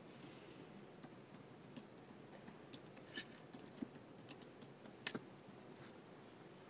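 Faint computer keyboard typing: scattered, irregular keystrokes as a short name is typed in.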